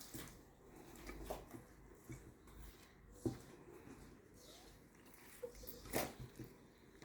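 Hands mixing flour and warm water into a soft dough in a bowl: faint squishing with scattered light knocks, a sharp one about three seconds in and a louder one near six seconds.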